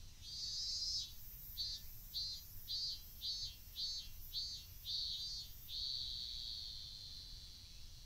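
A cicada singing: a short buzz, then a run of rhythmic pulses about two a second, ending in a long steady drone that slowly fades.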